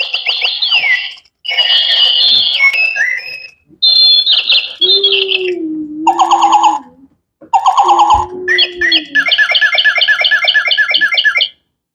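Battery-powered toy bird playing electronic bird chirps and whistled trills in several bursts separated by short gaps, ending in a fast repeated trill over the last few seconds.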